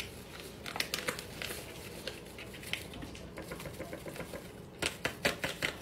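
Chocolate pudding mix being tipped into milk in a steel saucepan: a run of light clicks and taps from the packet and pan, with a cluster of sharper ones near the end.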